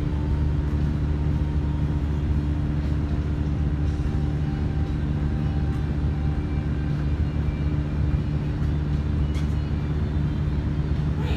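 A steady, low mechanical hum that does not change, with a few faint soft knocks.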